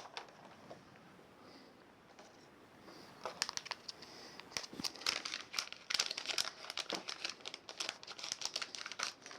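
Crinkling and rustling of something being handled, a dense run of small clicks and crackles that starts about three seconds in.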